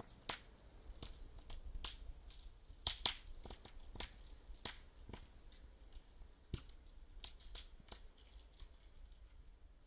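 Small wood fire crackling quietly, with irregular sharp pops and snaps about one or two a second, thinning out near the end.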